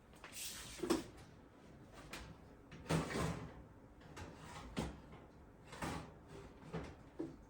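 An oven door and a baking tray being handled as biscuits come out of the oven: a series of clunks and scraping slides, with the loudest knock about three seconds in.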